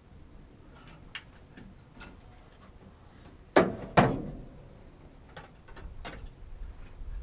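Light clicks and knocks of hand work with tools and parts, with two loud sharp knocks close together a little after halfway, each ringing briefly.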